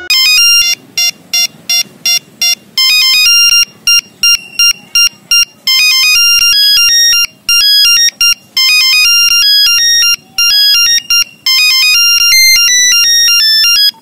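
Nokia 3350 mobile phone playing one of its built-in ringtones through its own speaker: a fast melody of short, beeping electronic notes, one note at a time.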